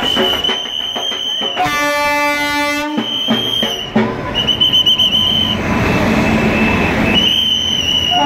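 WAP-5 electric locomotive horn sounding one blast of about a second, then the rumble of the train rolling past close by as it pulls into the platform. A shrill high tone comes and goes over it.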